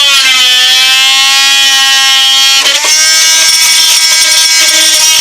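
Power tool running loud and steady at a high pitch as it cuts through a wooden batten behind a yacht's interior panel. The pitch sags slightly as the tool takes the load, and there is a brief hitch about two and a half seconds in.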